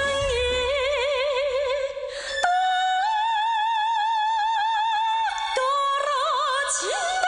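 A song with a high voice holding long notes with wide vibrato over instrumental accompaniment; one long held note rises in pitch about two and a half seconds in and is sustained for nearly three seconds.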